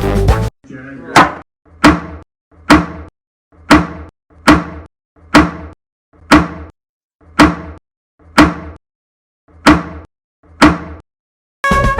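A series of about eleven sharp knocks, roughly one a second, each with a short ringing tail, separated by dead silence.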